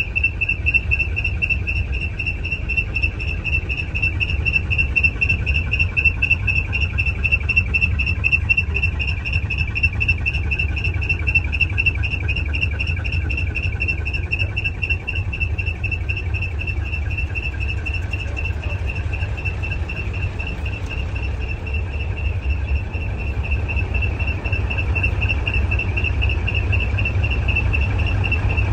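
Crickets or other insects trilling in one steady, rapidly pulsing high note, over a continuous low rumble.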